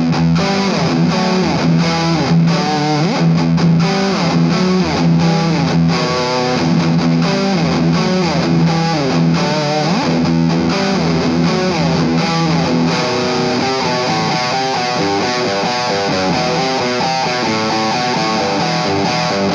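Distorted electric guitar through a Maxon SM9Pro+ Super Metal distortion pedal running at 9 volts, its scoop and edge controls cranked for a pronounced metal tone, playing a metal riff with sliding notes over a held low note. From about two-thirds of the way in, the riff turns choppier.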